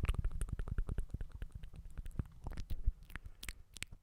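Close-miked ASMR mouth sounds: a rapid run of wet clicks and smacks, thinning out to sparser single clicks toward the end.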